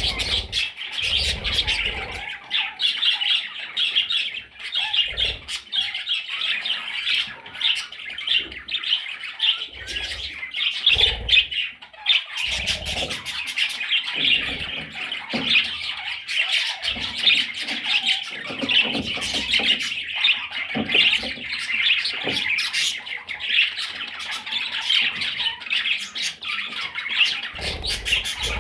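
Budgerigars chattering and squawking continuously in a dense, busy warble, with occasional short low thumps.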